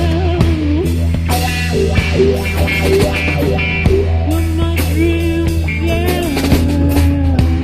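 Rock music with drums and a sliding, bending lead guitar line over a steady low bass drone.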